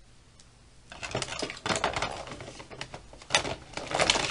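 Irregular light clicks, knocks and rustling of close handling noise, starting about a second in and with two louder knocks near the end.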